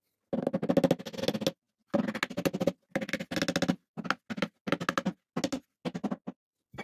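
Hand sanding a pine board, with sandpaper rasping back and forth across the wood: three long strokes of about a second each, then shorter, quicker strokes.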